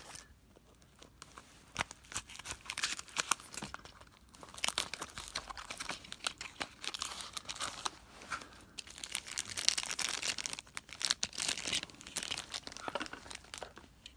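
Thin clear plastic bag crinkling and tearing, with the rustle and taps of a small cardboard box, as a diecast toy car is unwrapped by hand. The crackling comes in irregular bursts: sparse at first, then busy through most of the rest.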